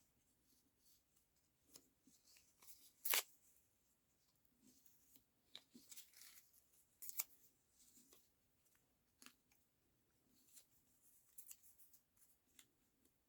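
Quiet paper handling: sparse rustles and sharp crisp crackles of paper and craft scraps being moved and laid down. The loudest crackle comes about three seconds in, another about seven seconds in.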